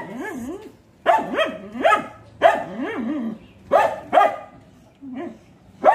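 A dog barking repeatedly: short barks at uneven intervals, some in quick pairs.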